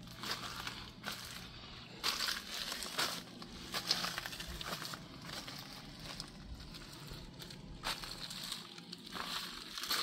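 Plastic vapor-barrier sheeting crinkling and crunching in irregular bursts as someone moves over it, with a low steady hum underneath.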